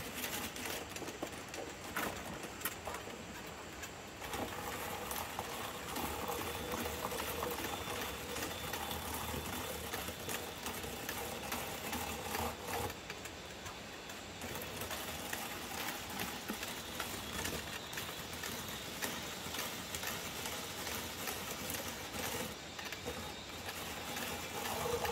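Small hand-cranked cassava slicer being turned, its blade steadily clattering as it chops fresh cassava roots into chips.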